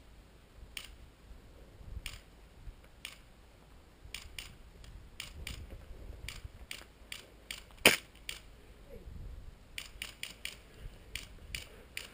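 Airsoft pistols firing: a scattered, irregular run of sharp pops, mostly faint, with one much louder shot about eight seconds in.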